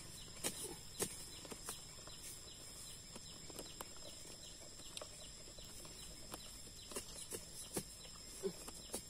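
A long-handled digging tool with a metal blade chopping into forest soil, irregular dull knocks about once a second, with dirt and leaf litter scraped between strokes. Two steady high tones run underneath.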